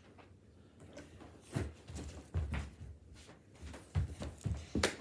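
Several irregular dull thumps and bumps of a child running about a room and catching a football, the loudest near the end.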